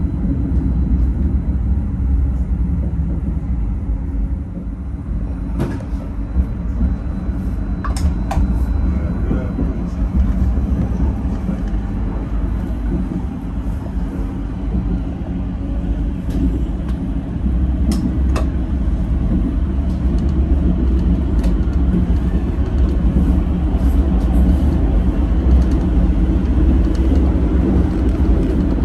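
Tram running along its rails: a steady low rumble, with a few sharp clicks now and then.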